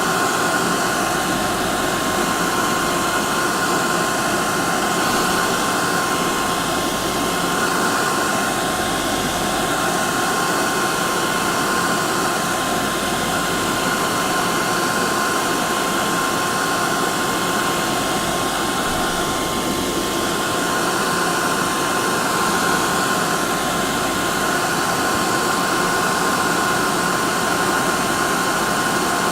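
Electric hair dryer running steadily: a constant blowing rush with a steady whine on top, used as continuous white noise to soothe a colicky baby to sleep.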